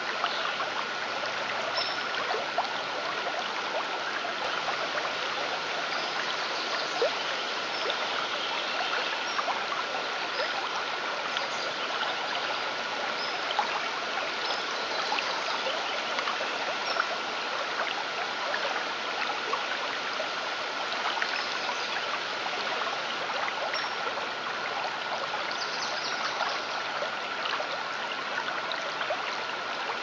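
Running water of a trickling stream, with one steady high tone held over it throughout: a Rife frequency tone. Faint short high chirps come and go above the water.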